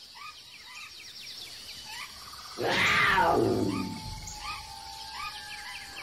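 Birds chirping in short repeated calls, with a single loud big-cat roar about three seconds in that falls in pitch as it fades.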